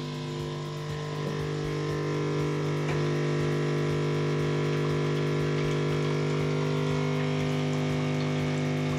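Siemens EQ500 classic fully automatic espresso machine's pump running steadily during its switch-off rinse, pushing hot rinse water through the coffee spouts into a cup. It is a steady hum that gets a little louder about a second in.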